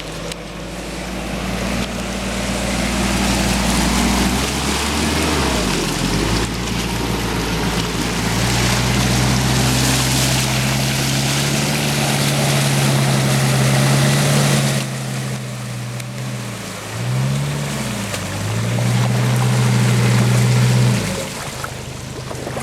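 Off-road SUV engine revving hard and held at high revs under load while its wheels spin and churn through deep mud and water. The revs dip briefly a few times and fall away near the end.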